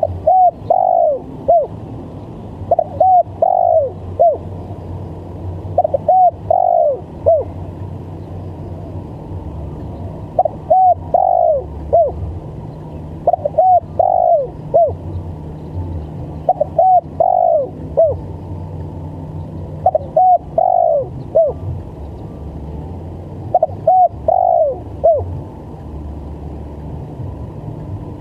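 Spotted dove (tekukur) cooing its stuttering 'gagap' call: a phrase of a few short coos with a longer, falling middle note, repeated about every three to four seconds, eight times in all.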